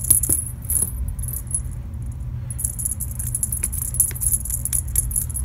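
Light metallic jingling and rattling of a feather wand cat toy as a cat bats and grabs at it, in quick irregular bursts with a short pause about two seconds in. A steady low rumble runs underneath.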